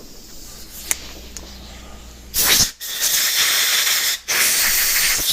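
Compressed air blowing out a motorcycle brake master cylinder: a short blast about two seconds in, then two longer hissing blasts.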